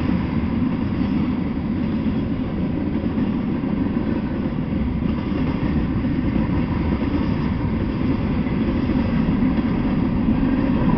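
Freight train of tank cars and covered hoppers rolling past: a steady low rumble of steel wheels on the rails.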